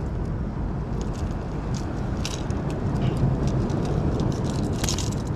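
Wind buffeting the microphone: a steady low rumble, with scattered light clicks and rustles over it.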